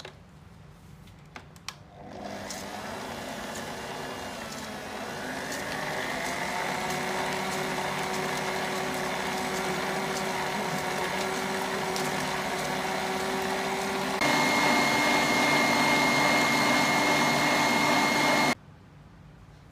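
Kenwood stand mixer with a balloon whisk beating eggs and caster sugar in a steel bowl. After a few light clicks, the motor starts about two seconds in and winds up over a few seconds to a steady speed. Near the end it steps up to a faster, louder speed, then cuts off suddenly.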